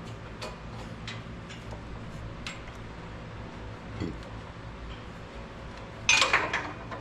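Ratchet wrench clicking in short strokes on header bolts, then a steel socket dropped, clattering off metal parts of the engine bay for about half a second near the end without reaching the floor.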